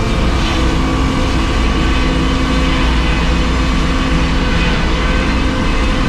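Circular sawmill running, its large circular blade sawing a one-inch board off a pine log as the carriage feeds the log through. A loud, steady din with several steady hums under the noise of the cut.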